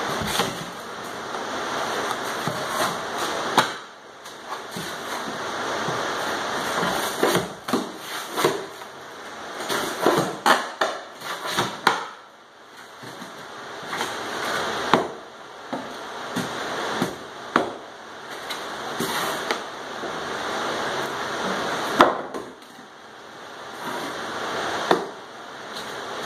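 Long-handled flooring pry bar (Burke bar) levering stapled particle-board underlayment off the subfloor: rough scraping and creaking as the boards lift and the staples tear, broken by sharp cracks and knocks of wood and steel every few seconds.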